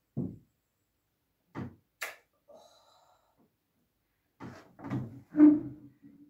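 Tableware being handled on a table: a few separate short knocks and a sharp click, then a quick cluster of knocks and clatter near the end, the loudest of them followed by a short ringing tone.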